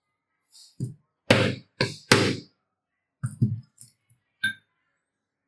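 A run of irregular knocks and thuds of the steel saw blade and its wooden handle against a wooden workbench during reassembly, about nine in all. The two heaviest come a second or two in, and the last, near the end, has a short metallic ring.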